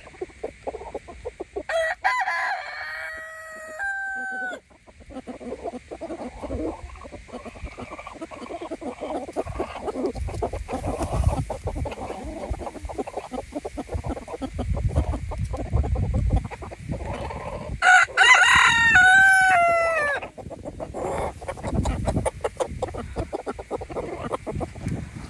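Rooster crowing twice, about two seconds in and again, louder, about eighteen seconds in. Between the crows there is clucking and short scratchy rustling.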